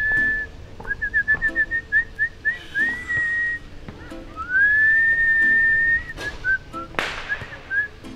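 A man whistling a tune through pursed lips, a tune he made up himself: a long held note, a quick run of short notes, another long note that rises and holds, then a few more short notes. One sharp smack sounds about seven seconds in.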